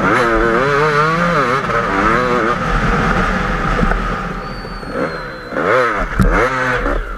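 KTM 250 EXC two-stroke enduro motorcycle engine, heard close up from on the bike, revving up and down as the throttle is worked through deep sand. Past the middle it eases off for about a second, then revs hard again, with a sharp knock near the end.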